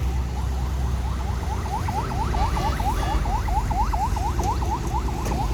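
Heavy machine's diesel engine running with a steady low rumble, over it a fast run of short rising squeaks, about five a second, loudest in the middle and fading near the end.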